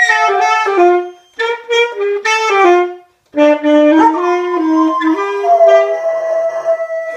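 Saxophone playing a melody in short stepped phrases with two brief pauses, and a dog howling along with it.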